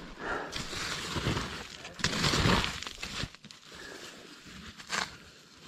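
Rustling and scraping as a bag is handled and pulled open to get at what is inside, loudest about two seconds in, followed by a single sharp click near the end.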